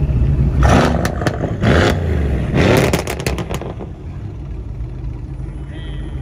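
Mercedes-AMG C63 S coupe's twin-turbo V8 exhaust revving in three short blips about a second apart, with sharp crackles and pops. It then settles to a lower, fainter rumble as the car pulls away.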